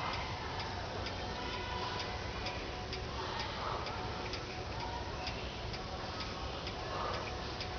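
Steady hiss of rain, with faint, regular ticking running through it.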